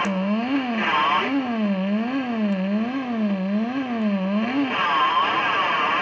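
Electronic feedback loop through guitar effects pedals (fuzz, WMD Geiger Counter bitcrusher and chorus) sounding a buzzy, pitched drone whose pitch warbles steadily up and down about once a second. About a second in it breaks briefly into noise. Near the end it collapses into harsh, crackling distorted noise.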